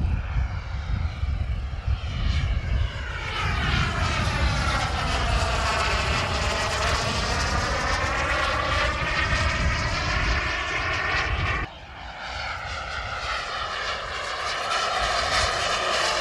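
Jetman 160 turbine of a large radio-controlled M-346 model jet running in flight as the jet passes by, a steady jet whine and rush with a hollow sweeping tone that falls and then rises again. The level dips suddenly about twelve seconds in, then the sweeping sound carries on.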